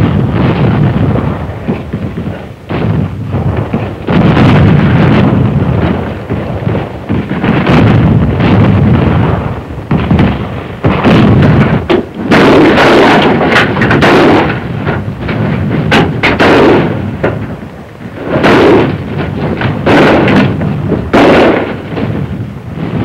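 Close-quarters battle: rifle fire and explosions going off in a dense, near-continuous run, with sharper bursts crowding together in the second half.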